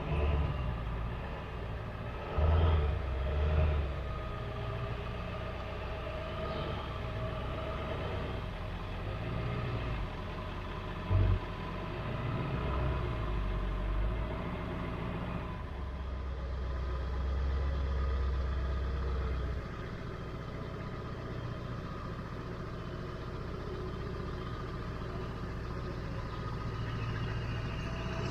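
An engine running steadily at a low rumble, with a couple of short loud knocks.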